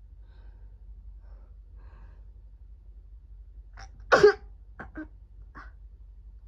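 A person with a blocked, runny nose sneezes once, loudly and sharply, about four seconds in, right after a short intake of breath, then takes a few short breaths.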